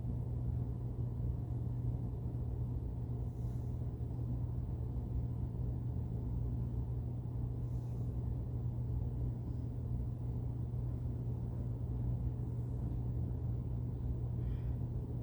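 Steady low hum and rumble of background noise, even in level throughout, with no other sound standing out.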